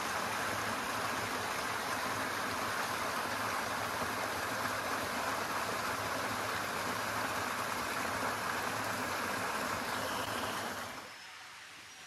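Small forest stream splashing where a little cascade pours off a rock ledge into a shallow pool: a steady rush of water that drops away sharply near the end.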